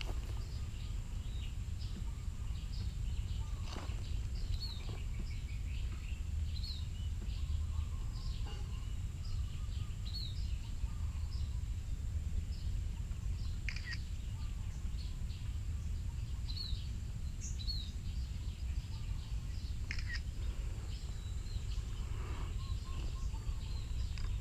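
Small birds chirping in short, scattered calls over a steady low rumble, with a faint steady high-pitched tone running underneath.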